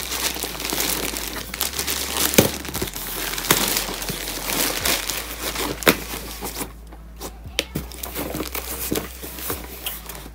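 A parcel being opened by hand: packaging crinkling and tearing in dense crackles, thinning to a few quiet rustles and clicks about six or seven seconds in.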